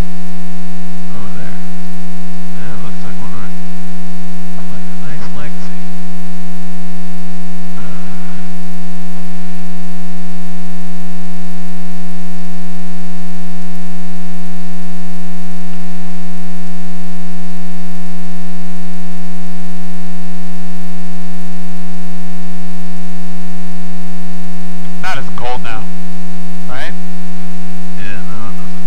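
Loud, steady electrical buzz in the cockpit audio feed, one unchanging low tone with overtones, with a few short snatches of faint voice.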